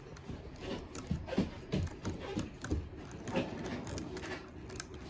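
Irregular light clicks and taps, several a second, from small objects being handled against plastic cups and a tabletop.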